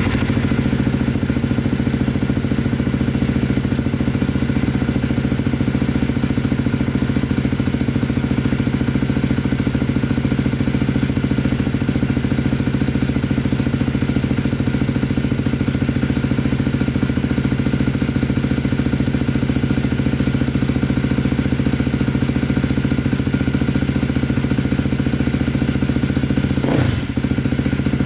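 KTM 350 EXC-F's single-cylinder four-stroke engine idling steadily, with one brief dip in its sound near the end.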